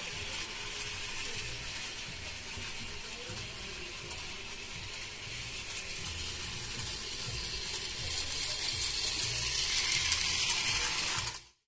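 Small battery-operated Rail King toy train running around its plastic track, its small motor and gears going steadily. It gets louder over the last few seconds and cuts off suddenly just before the end.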